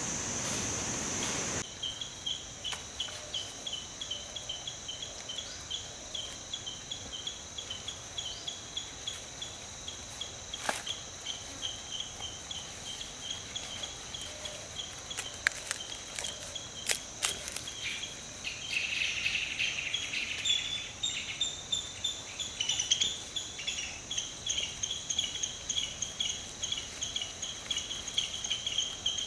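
Insects chirping in a fast regular pulse, about three chirps a second, over a continuous high whine. A few sharp crackles from banana leaves being handled come through around the middle. It opens with a second or so of steady rushing water.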